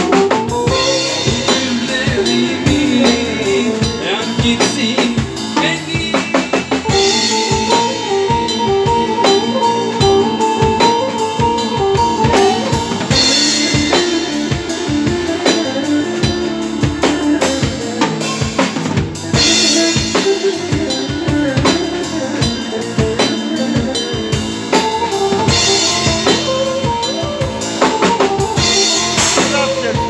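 Live band playing an instrumental arabesk passage: a drum kit beats a steady rhythm under held keyboard or guitar melody lines.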